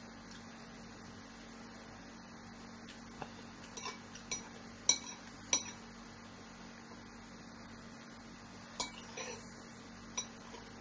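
A spoon clinking against a bowl of bakso (meatball soup): several short, sharp clinks, a cluster a little before the middle and a couple more near the end, over a faint steady hum.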